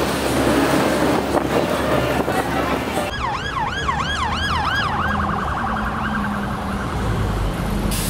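Wind buffeting the microphone, then about three seconds in a siren starts abruptly, yelping up and down about four times a second before settling into a faster steady warble.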